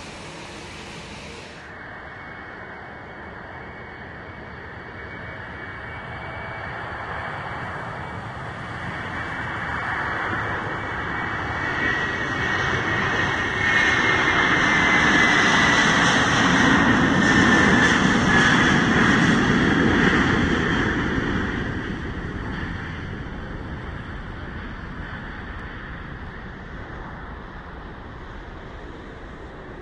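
Airbus A330-300 jetliner taking off on a wet runway. The engine noise swells as it rolls past at takeoff thrust, with a high fan whine that slowly falls in pitch, then fades as the jet climbs away.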